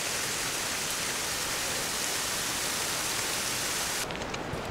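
Steady hiss of water, rain or a nearby river. It cuts off abruptly about four seconds in and gives way to a quieter background with a few faint clicks.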